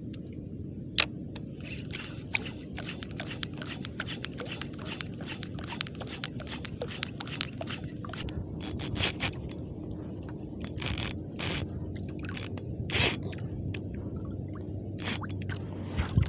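Spinning reel and rod being worked while jigging: a run of short scraping clicks over the steady low rumble of the boat. The clicks grow louder and sharper in the second half.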